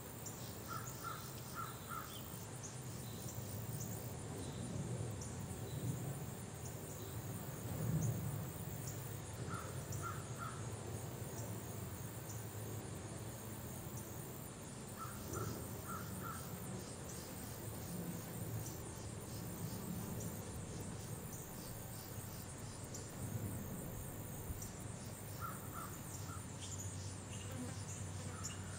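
Outdoor ambience: insects trilling steadily at a high pitch, with a bird calling in short groups of three or four notes, about four times, over a low background rumble.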